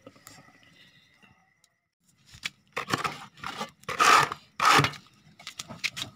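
Maize cobs and firewood sticks being shifted about in a shallow metal pan of glowing embers: scraping and crunching that starts about two seconds in, with two louder rasping bursts near the middle.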